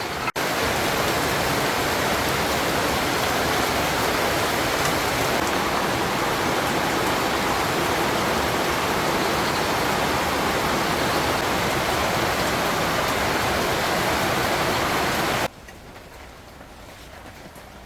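Heavy rain falling in a steady downpour. About 15 seconds in, it cuts suddenly to a much quieter rain sound.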